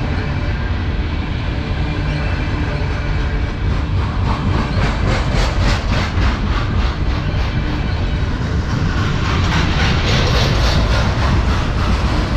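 Freight cars of a passing manifest train rolling by close at speed: a steady rumble of steel wheels on rail, with a regular clickety-clack as the wheel trucks cross rail joints. The sound grows hissier and a little louder about three-quarters of the way through.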